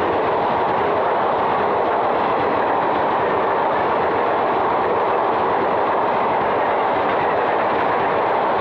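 Passenger coaches of an Indian Railways express train rolling past close by: a steady rumble of steel wheels on rail with clickety-clack over the rail joints.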